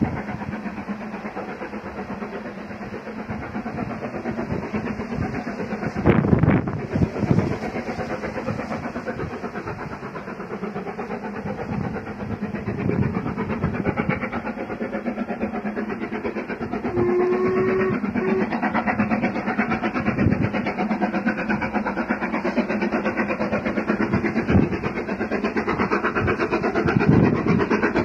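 LMS Black Five No. 45379, a two-cylinder 4-6-0 steam locomotive, approaching under steam with a fast, rhythmic exhaust that grows louder about halfway through.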